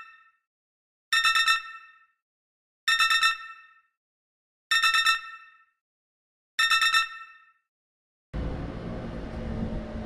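Electronic alert sound effect: a rapidly pulsing, bell-like beep that repeats about every two seconds, each burst ringing out before the next, four times. Near the end the beeping gives way to a steady outdoor background noise with a low hum.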